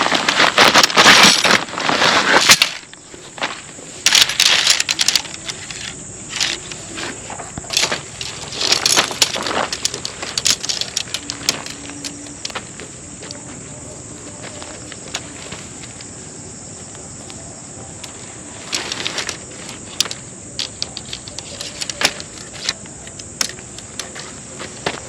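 Bursts of rustling and crunching, loudest in the first couple of seconds, with scattered clicks, over a steady high-pitched hiss.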